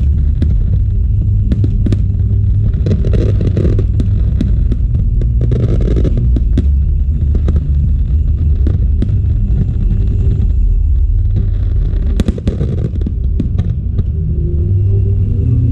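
Loud fireworks display: aerial shells bursting in quick succession, a continuous low rumble of booms with many sharp cracks running through it.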